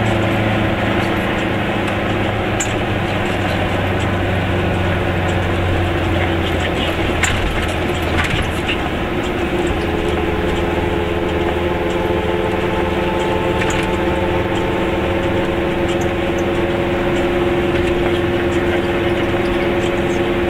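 Goggomobil's small two-stroke twin engine running steadily while driving, heard from inside the cabin along with tyre noise on a wet road. The engine pitch shifts about six seconds in and again about ten seconds in, with a few short clicks.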